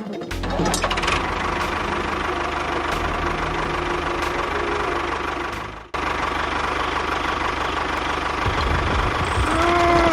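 A motor running steadily with a low, even rumble. It cuts out sharply about six seconds in and resumes at once.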